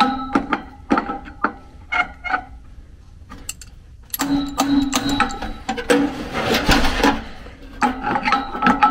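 Adjustable wrench and steel bar knocking and scraping against a furnace blower wheel's hub and its sheet-metal housing, with the metal ringing after the knocks, as a blower wheel seized on the motor shaft is twisted to break it free.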